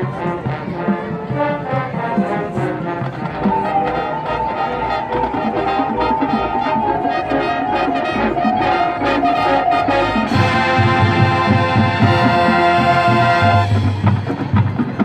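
Marching band playing, with brass to the fore over regular percussion strikes. About ten seconds in, the full band swells into a loud held chord that lasts about three seconds.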